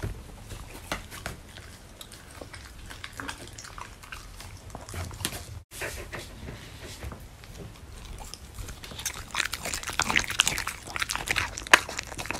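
A Samoyed chewing a piece of beef steak, picked up close: many quick wet clicks and crunches, busiest and loudest near the end.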